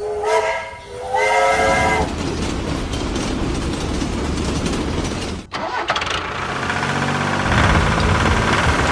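A loud engine running with a dense mechanical noise, briefly breaking off about five and a half seconds in, then running on with its pitch falling near the end. Two short, steady pitched tones sound in the first two seconds.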